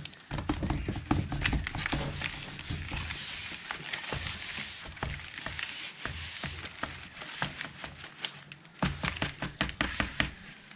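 Potting mix poured from one plastic bucket into another, a gritty rustling hiss, with scraping and knocks against the plastic as it is stirred by hand. The pouring hiss is strongest in the middle, and the knocks pick up again near the end.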